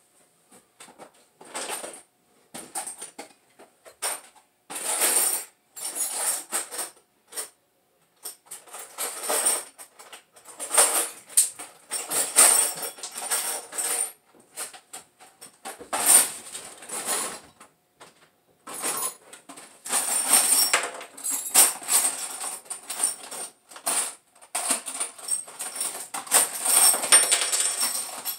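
Metal tools and small parts being rummaged through off-camera: irregular bursts of clinking and rattling, some lasting a second or two, with short pauses between.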